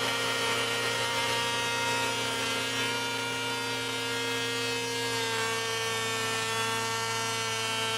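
Hovercraft's 580cc two-stroke snowmobile engine running at steady revs, driving its fan; the revs sag slightly about five seconds in.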